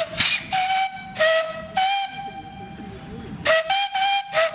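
Narrow-gauge steam locomotive whistle sounding a rapid series of short toots, about five in the first two seconds, then after a pause of about a second another quick burst of three or four.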